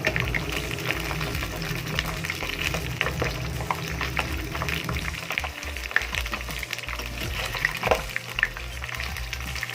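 Potatoes frying in hot oil, sizzling with a constant crackle of small pops.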